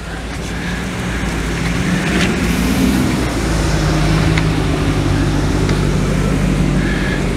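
A car engine running nearby, getting louder over the first couple of seconds and then holding steady, with its low pitch shifting up and back down around the middle.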